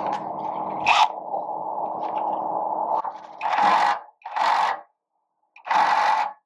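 Cordless impact wrench hammering a large bolt tight on a motorhome's radiator and charge-air-cooler mounting: one run of about three seconds, then three short bursts as the bolt snugs down.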